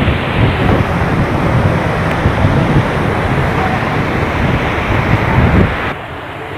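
Heavy storm rain and strong wind, a loud rushing noise with gusts buffeting the microphone. The level drops sharply near the end.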